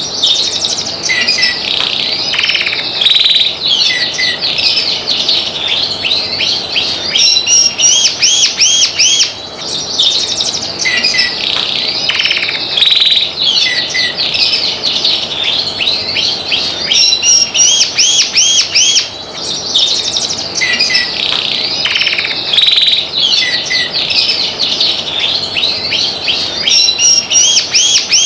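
Domestic canary singing continuously and vigorously: long song phrases of fast trills, rapid repeated notes and sweeping whistles, high-pitched. The same song passage comes round about every nine seconds.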